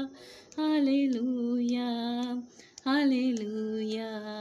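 A woman singing a Christian praise chorus without accompaniment, drawing out "Hallelujah" twice in long held notes with a short breath between.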